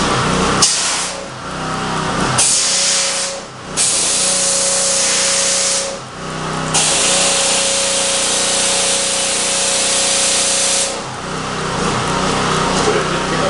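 Pressure washer spraying a large metal frame in several bursts with short gaps between them, the longest lasting about four seconds. Its pump runs with a steady tone under the hiss of the jet. The spray stops about eleven seconds in.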